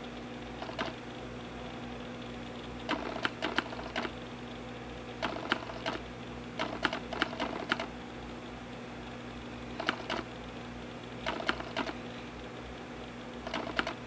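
Eastern chipmunk cracking sunflower seed shells with its teeth: quick clusters of small sharp clicks, a group every second or two, over a steady low hum.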